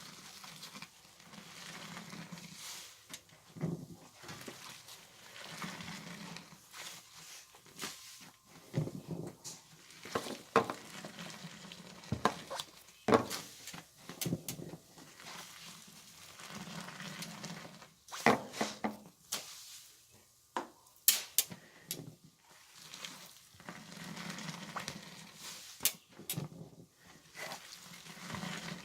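Soap-soaked laundry squelching and crackling as it is squeezed, in repeated squeezes every few seconds with sharp little clicks between them.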